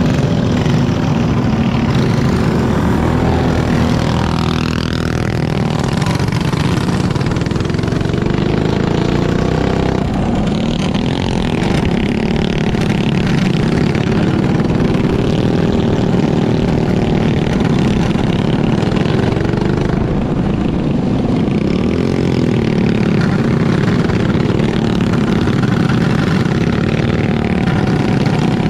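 Racing flat kart engines running hard on a dirt oval, heard from on board one kart among the pack. The engine note falls and rises again several times as the karts lap.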